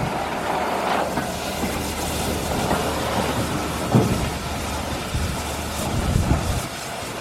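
A train running along the rails, a steady rumble with a couple of knocks about four and six seconds in.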